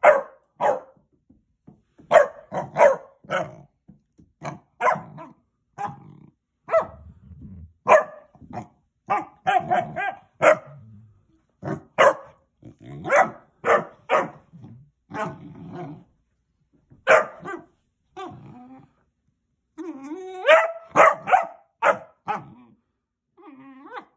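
Basset hound puppy barking over and over in short, high yaps in uneven runs, with one longer call rising in pitch about twenty seconds in: play barking, inviting the older dog to play.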